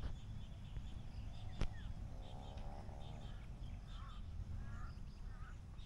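Large-billed crows cawing: short harsh calls repeated roughly every half-second to second in the second half, over fainter high chirping and a low wind rumble on the microphone.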